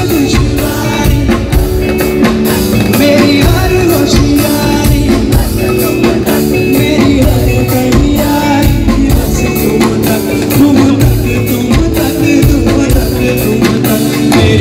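Male singer singing live into a microphone over band accompaniment, loud through a concert sound system.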